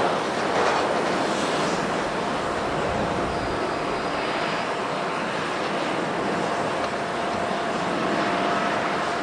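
Jet airliner engines running, a steady rushing noise with a faint steady whine coming in about six seconds in.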